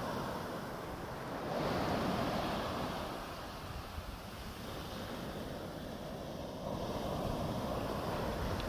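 Small waves breaking and washing up a sandy beach, the surf swelling about two seconds in, easing off in the middle and building again near the end. Wind rumbles on the microphone underneath.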